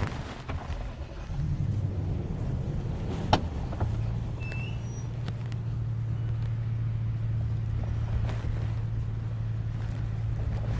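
A car's engine running with a steady low hum, and a sharp click a little over three seconds in.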